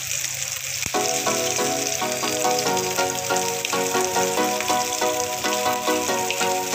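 Oil sizzling steadily around shami kababs shallow-frying in a flat pan. Light background music comes in about a second in.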